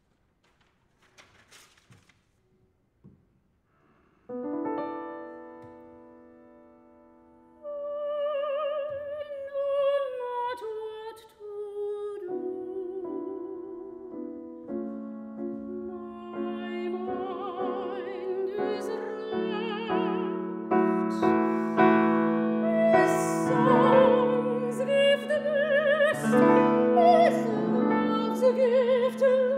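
After a few seconds of near silence with faint clicks, a C. Bechstein grand piano sounds a chord that rings and fades. A few seconds later a soprano enters singing a classical art song with wide vibrato over the piano accompaniment, growing louder toward the end.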